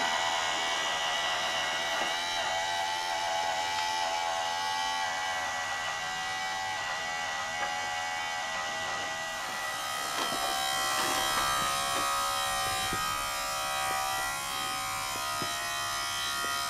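Steady mechanical whine made of several held pitches, which shifts to a different set of pitches about nine and a half seconds in, with light knocks and handling noises in the second half.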